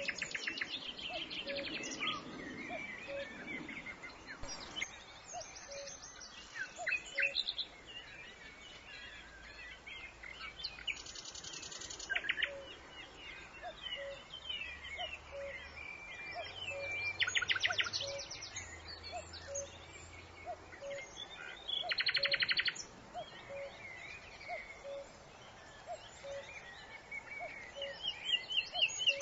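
Mixed wild birdsong: many birds chirping and whistling, with a rapid trill of quick repeated notes, about a second long, several times. Underneath, a short low note repeats about once a second.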